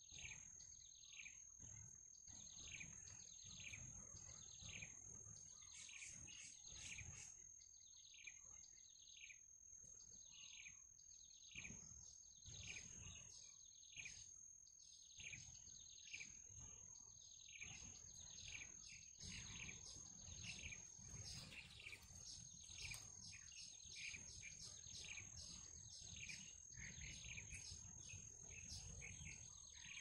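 Faint, rapidly repeated short falling chirps of birds, several a second, over a steady high insect drone that breaks off briefly a little after twenty seconds.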